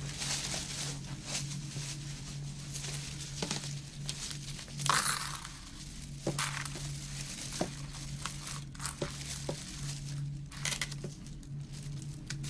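A plastic shop carrier bag and paper rustling and crinkling as a purchase is bagged, with scattered small clicks and taps and a louder rustle about five seconds in, over a steady low hum.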